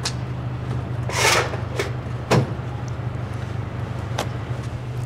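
Truck engine idling with a steady low hum, while the rear doors of a box trailer are swung open and secured: a short rush of noise about a second in, then a few sharp metal clunks, the loudest about halfway through.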